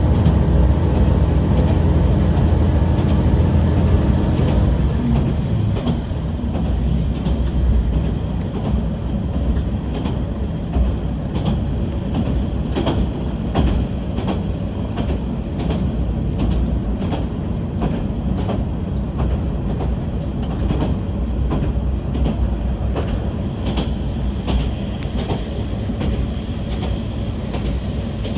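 Diesel railcar running along the line: a steady engine drone drops away about five seconds in, leaving the rumble of the car and the clickety-clack of its wheels over rail joints, clicking about once a second.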